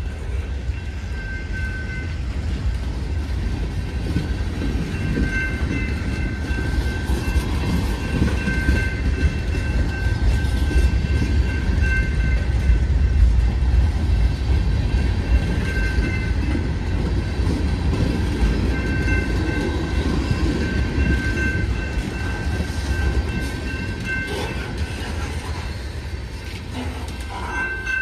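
Freight train of boxcars, covered hoppers and tank cars rolling past: a steady rumble of steel wheels on rail, loudest midway, with thin high tones that come and go throughout.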